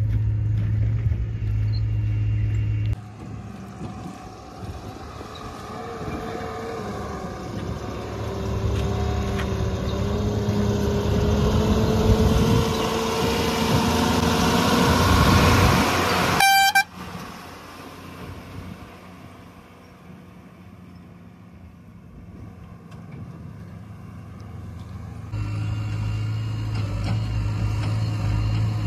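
Tata 2518 tipper truck's diesel engine pulling through pond water, growing louder and rising in pitch as it comes closer. About halfway through there is a short horn toot and the sound cuts off. A steady low engine hum is heard at the start and again near the end.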